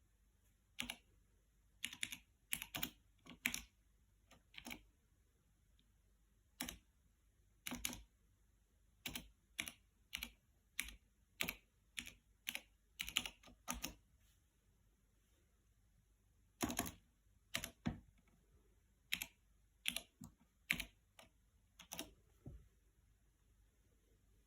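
Typing on a Psion MC400 laptop's 1989 Cherry G60-1600 mechanical keyboard with MX Clear switches: uneven single keystrokes clicking, broken by a couple of pauses of about two seconds.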